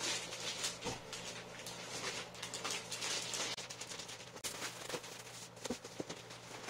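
Plastic packaging wrap crinkling and rustling as wrapped gaming-chair parts are handled and pulled from a cardboard box, with a few light knocks.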